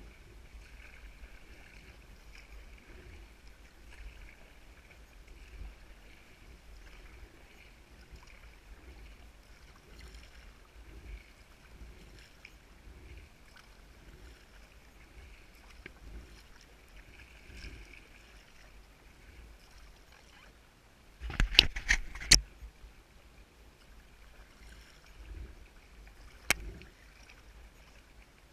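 Kayak paddle strokes and water lapping at the hull. About three quarters of the way through there is a quick cluster of sharp knocks, the loudest sound, and one more knock follows a few seconds later.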